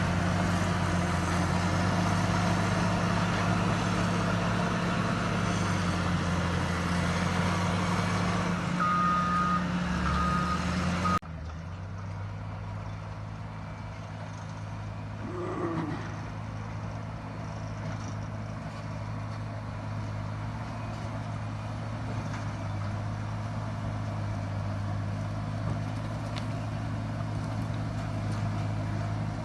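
Caterpillar 140M motor grader's diesel engine running steadily, with its reverse alarm beeping a few times about a third of the way in. The sound then drops off suddenly and the engine carries on more quietly.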